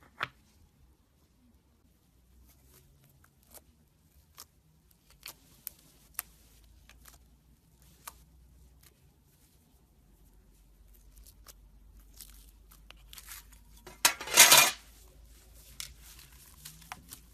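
Light taps and fingertip handling of a slime toy shaped like an apple tart in a small tart tin, then a loud, short noisy burst lasting under a second near the end as it is worked.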